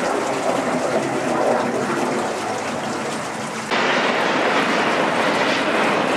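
Jet aircraft passing overhead, a steady rushing engine noise. About three and a half seconds in it jumps abruptly to a louder, brighter rush as a formation of three jets passes.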